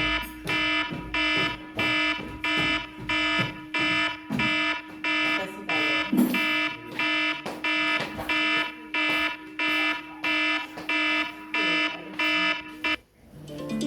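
iPhone timer alert tone playing: a bright electronic beep pulsing evenly about twice a second over a steady low hum, stopping near the end.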